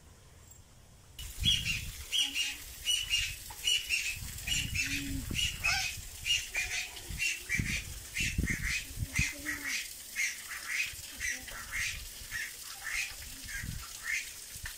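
Parrots squawking over and over in an aviary, short harsh calls about two a second, starting about a second in. Low muffled thumps come and go under the calls.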